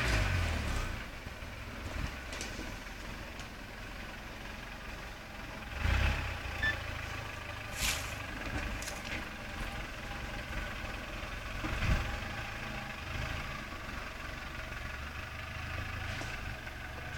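Off-road 4x4 engine running at low revs, with a couple of brief louder swells and a short sharp knock about eight seconds in.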